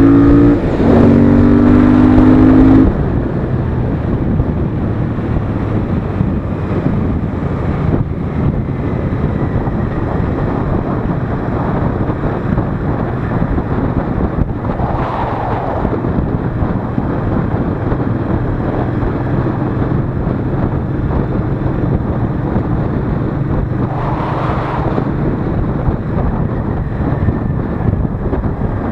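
Royal Enfield Interceptor 650's parallel-twin engine accelerating hard for the first few seconds, rising in pitch, with a short drop in pitch about a second in at a gear change. Then the throttle eases and the engine runs at a steady cruise.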